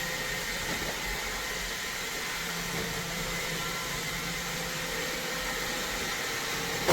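iRobot Roomba Combo robot vacuum running, a steady whirring noise with faint whining tones over it.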